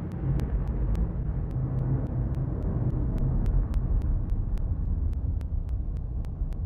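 A steady low rumble with faint ticks at an even pace.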